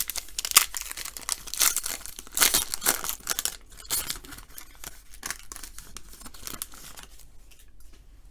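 Basketball card pack wrapper being torn open and crinkled, a run of crackling tears in the first four seconds, then quieter rustling and clicks.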